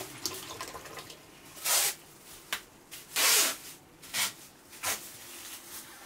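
Plastic masking sheet rustling and crinkling in several short bursts as gloved hands smooth and press it down, the loudest about three seconds in.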